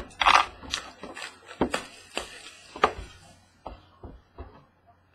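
Hands handling a cardboard trading-card hobby box on a tabletop: a rustling scrape near the start, then scattered sharp taps and clicks as the box is moved and opened.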